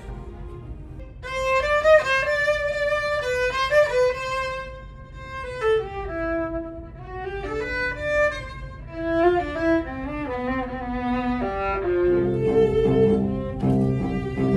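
Solo violin playing a slow melodic line that steps down into its low register. About twelve seconds in, a cello comes in underneath with sustained low notes.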